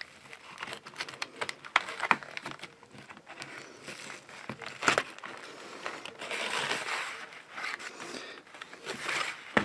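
Cardboard-framed pleated furnace filter being handled, rustling and crinkling, with scattered clicks and taps as small hangers are pushed into the frame.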